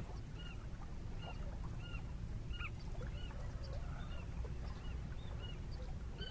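Birds calling over and over, each call a short note that rises and falls, coming a little under two times a second, over a steady low rumble.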